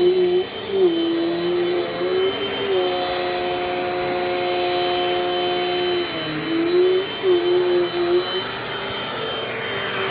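Dirt Devil Dynamite Plus upright vacuum cleaner running steadily with a high whine, its motor pitch dipping briefly several times.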